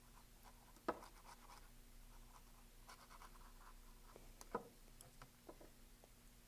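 Faint scratching of a paintbrush scrubbing acrylic paint onto canvas, with light taps of the brush about a second in and again at around four and a half seconds.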